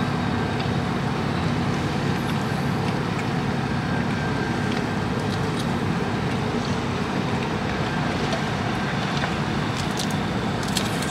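Steady street traffic noise with a low, even engine hum underneath and a few faint clicks.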